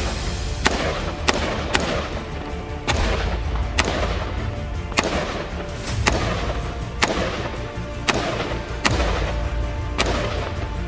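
Colt M4 carbine firing 5.56x45 mm NATO rounds as single shots, roughly one a second at slightly uneven spacing, each with a short echo. Music plays underneath.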